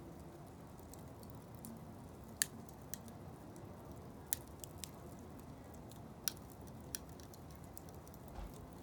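Blocks of wood burning in a fire basket, crackling with a few sharp pops over a low, steady hiss.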